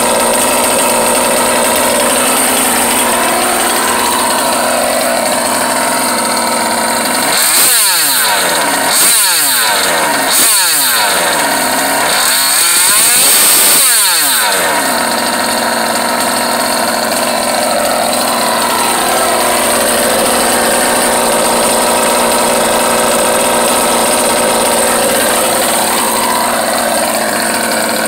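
OBR 57cc twin-cylinder two-stroke engine in a 1/5-scale RC car idling, then revved up and back down four times between about 7 and 15 seconds in, the last rev held longer, before settling back to a steady idle.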